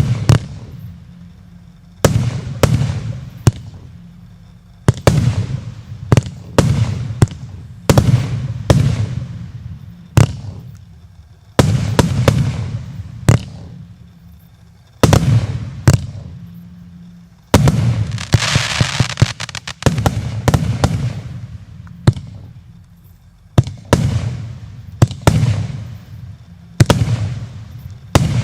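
Combined fireworks battery of 0.8, 1 and 1.2 inch tubes firing: sharp shots and aerial bursts every second or two, some in quick clusters, each fading out. About two-thirds of the way through, one burst trails off in a longer crackling hiss.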